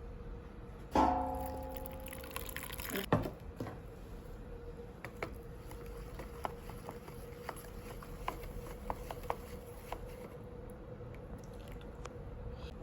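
A brass samovar part is knocked about a second in and rings with several tones that die away over about two seconds. A second knock follows, then scattered small clicks and taps as the metal is handled.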